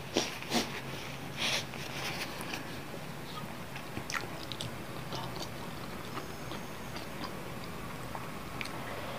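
Three short noisy puffs in the first second and a half from a tissue held to the nose, the last one the longest. Then soft chewing with scattered small clicks of wooden chopsticks.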